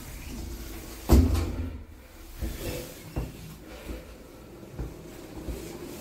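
Lift doors closing shut with one heavy thud about a second in, followed by a few lighter clunks and knocks as the lift car sets off downward.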